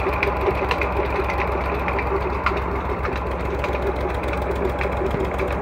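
Massey Ferguson 135 tractor engine running steadily at a constant speed with an even, rhythmic beat, driving a tubewell water pump through its PTO shaft.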